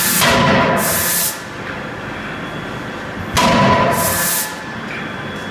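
31.5 kJ CNC die forging hammer working. A loud blow with metallic ringing and a hiss comes about three and a half seconds in, and the tail of an earlier blow fades out a second or so into the clip, all over a steady machine hum.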